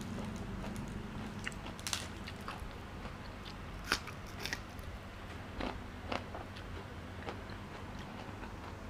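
Close mouth sounds of a person chewing raw sliced beef with fresh vegetables: scattered wet clicks and small crunches, loudest about four seconds in.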